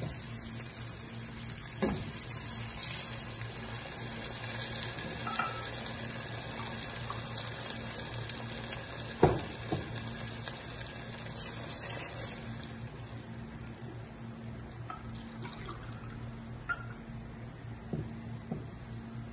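Glasses of water being poured into a hot pot of fried chickpeas and masala: a steady splashing wash that eases off after about twelve seconds. A few knocks, the sharpest about nine seconds in.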